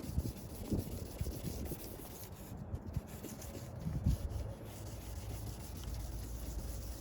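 Hand sanding pad rubbing over a plastic car headlight lens in uneven strokes, a low scraping: the coarser first grade of the pad wearing off yellowed oxidation and surface scratches.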